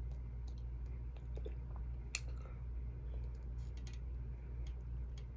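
Eating noises: faint chewing and small scattered clicks as fingers pick at baked chicken on a plate, with one sharper click about two seconds in, over a steady low hum.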